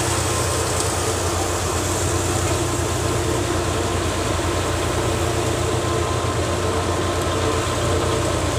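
Tractor-driven threshing machine running steadily under the diesel throb of an old Fiat 480 tractor powering it, with a constant whirring hum from the thresher drum and blower.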